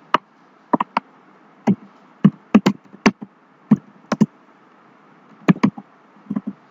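Typing on a computer keyboard: about fifteen separate key clicks at an irregular pace, some in quick pairs.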